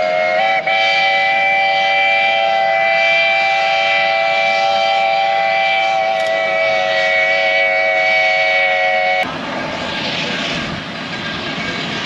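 Mount Washington Cog Railway steam locomotive's whistle blowing one long blast, a chord of several tones, with a brief stutter about half a second in. It cuts off suddenly about nine seconds in, leaving a steady rushing noise.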